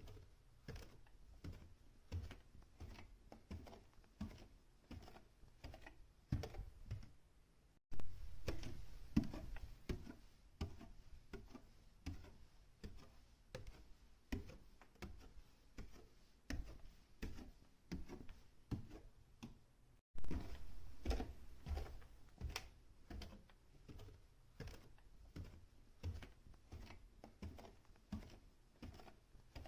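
Footsteps on a staircase, going up and down at about two steps a second. The sound cuts off abruptly twice, near 8 s and 20 s, where separate recordings are joined, each time resuming with a louder step.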